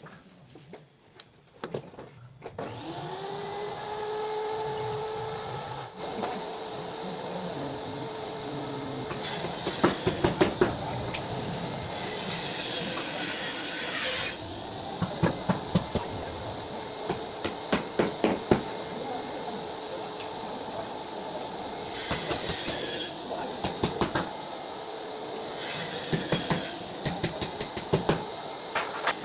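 A small motor spins up and runs steadily at an even pitch, with several bursts of rapid, sharp clicks or knocks over it.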